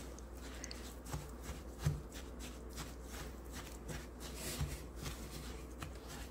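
Spatula stirring crushed chocolate biscuit crumbs with melted butter in a bowl: faint, irregular scraping and clicking with a few soft knocks.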